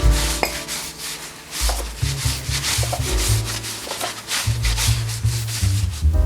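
Repeated rubbing strokes over background music with a bass line.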